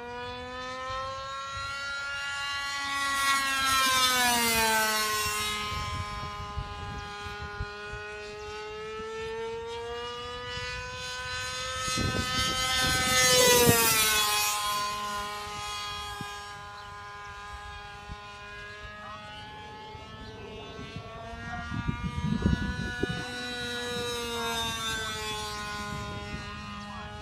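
A radio-controlled model airplane's motor and propeller whine overhead, the pitch rising and falling as it swoops and passes. It is loudest on three passes: about four seconds in, around thirteen seconds, and around twenty-two seconds.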